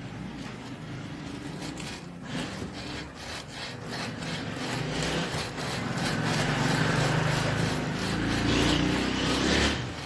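Sandpaper scrubbed rapidly back and forth over a microwave oven magnetron to take carbon deposits off it: a scratchy rubbing that grows louder in the second half.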